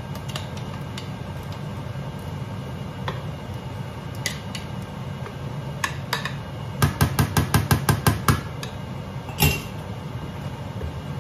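A spatula knocking against a glass mixing bowl to get the last batter out: a quick run of about ten sharp taps, some six a second, a little past halfway, then one more knock about a second later. A steady low hum runs underneath.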